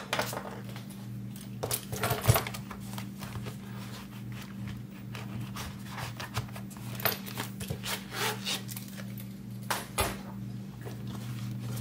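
Scattered taps, clicks and rustles of budget binders and cash envelopes being handled and moved on a table, over a steady low electrical hum.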